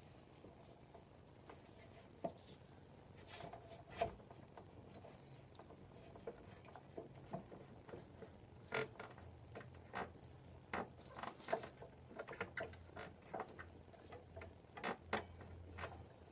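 Faint, scattered knocks, taps and clicks of hands and tools working on a motorcycle's front wheel and axle, busier in the second half. A low steady hum comes in about halfway.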